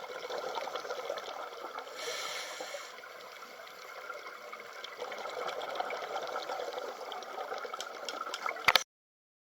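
Water trickling and gurgling without a break. Near the end a sharp knock is heard, and then the sound cuts off suddenly.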